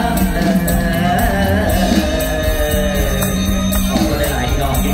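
Live Thai Isan concert music played loud through a stage PA: a singer sings over the band with a steady drum beat.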